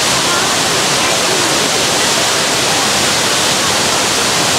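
Steady rushing of falling water from a man-made waterfall pouring off theme-park rockwork, an even, unbroken wash of noise.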